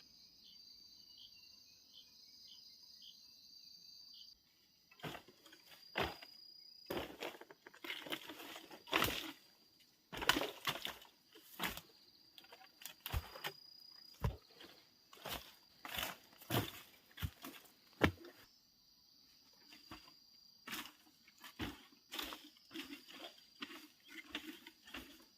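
Insects, likely crickets, trilling steadily at a high pitch. From about five seconds in, many irregular short rustles and knocks cut across the trill, louder than it.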